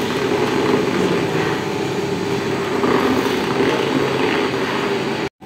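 Motor-driven vaagai-wood chekku (traditional rotary oil mill) running steadily as it grinds dried copra for coconut oil: a continuous mechanical drone. The sound drops out abruptly for a moment near the end.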